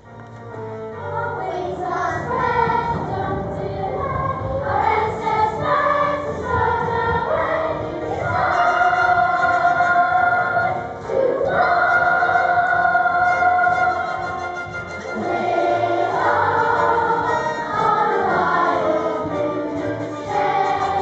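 A children's choir singing a song together with instrumental accompaniment, starting about a second in.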